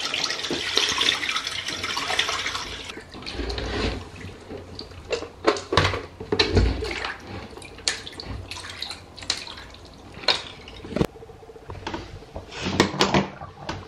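Soapy water poured out of a plastic tub into a bathtub, rushing and splashing for the first three seconds or so. It then thins to trickling and drips, broken by scattered knocks and splashes as the tub is handled.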